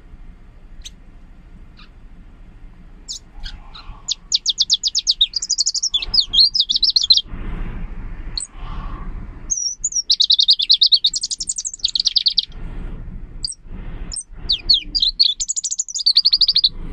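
Caged leaf warbler singing in bursts of very rapid, high, crisp trills. The first burst starts about four seconds in, after a few faint chirps, and the bursts are separated by short pauses.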